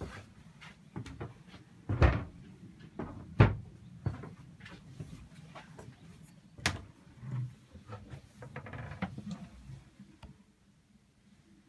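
Scattered knocks and clicks of a wooden cabin door and its latch being handled, the loudest two about two and three and a half seconds in, with a brief rattle near the end.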